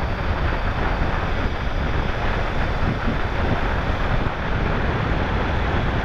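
Steady wind rushing over the microphone of a motorcycle rider under way, with no distinct engine note coming through.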